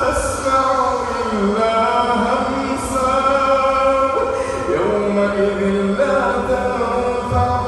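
A man reciting the Quran in melodic tajweed style, drawing out long held vowels whose pitch slides and bends between phrases.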